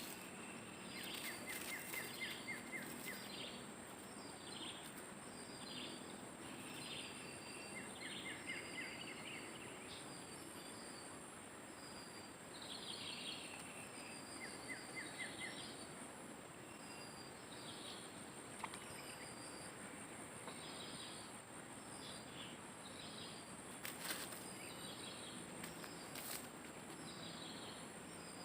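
Faint outdoor ambience: an insect's steady high-pitched trill runs throughout while a bird calls over and over with short chirps and brief trills, and a couple of sharp clicks sound near the end.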